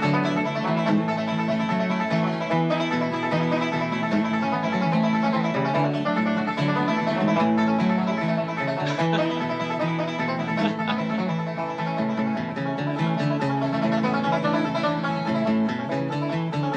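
Background instrumental music: banjo and guitar picking a fast bluegrass tune, with a steady stream of quick plucked notes.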